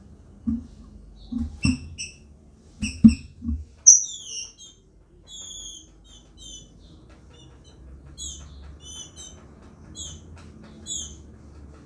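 Female green-winged saltator (trinca-ferro) giving a run of short, high chirping calls in twos and threes: the female's call when soliciting mating (pedindo gala). A few sharp knocks come in the first three or four seconds.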